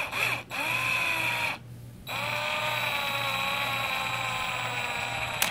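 Power drill, its clutch set, driving screws into a plastic RC differential case. It whines in two runs, a short one and then a steadier one of about three and a half seconds, and ends in a sharp click.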